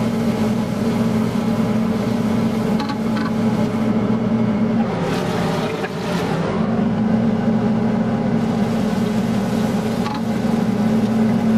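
Steady hum of a kitchen range hood fan, with chicken frying in a wok as it is stirred with a spatula; a brief rush of noise about five seconds in.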